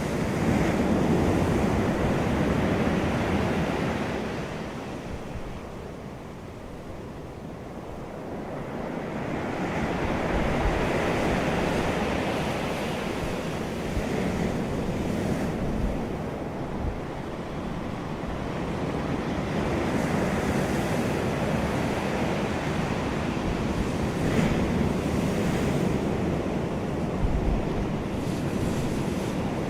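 Ocean waves breaking and washing ashore in a continuous surf. The surge swells and falls, easing into a lull a few seconds in and building again about a third of the way through.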